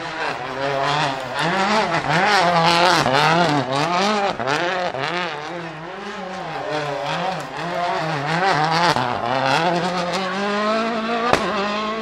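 Citroën DS3 WRC's 1.6-litre turbocharged four-cylinder engine revving up and down over and over, about one and a half times a second, then holding a steadier, slowly rising note. A single sharp bang comes near the end.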